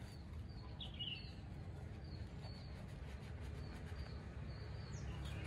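Small birds chirping in short, high calls every half second or so, with a stronger call about a second in, over a low steady background rumble.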